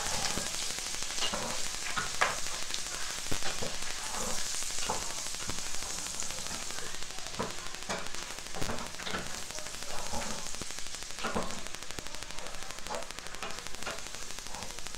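Pork pieces sizzling as they fry in a pot, stirred with a wooden spatula that knocks and scrapes against the pot many times.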